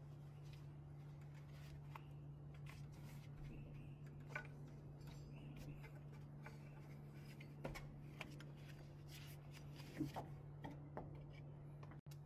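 Faint rubbing and scattered light clicks as the toothed rubber timing belt of a Toyota 5L engine is worked off its sprockets by hand, over a steady low hum.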